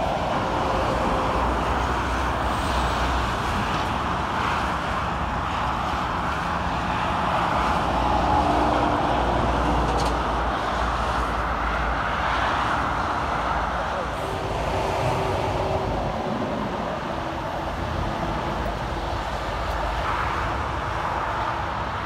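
Steady motorway traffic: the tyre and engine noise of cars and lorries passing at speed on the carriageway below, with a low rumble underneath.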